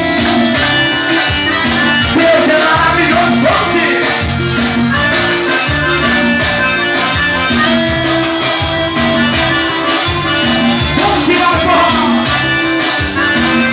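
Live forró band playing: an accordion melody over a steady bass and drum beat, with some singing.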